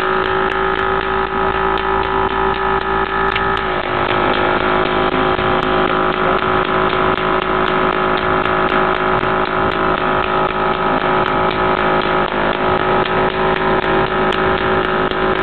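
Steady mechanical hum made of several held tones, like a small motor or pump running. One of the lower tones drops out about four seconds in.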